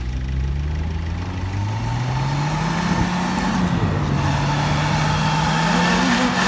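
Suzuki Vitara 4x4's engine revving hard as its tyres spin in snow and it struggles to climb out. The pitch climbs over the first couple of seconds, dips briefly near the middle, and rises again near the end.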